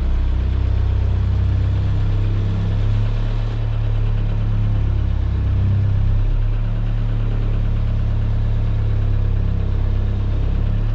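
Sailboat's inboard diesel engine running steadily, heard from inside the cabin as a low hum, its speed worked with the throttle lever to get past a vibration; the pitch shifts slightly a few times.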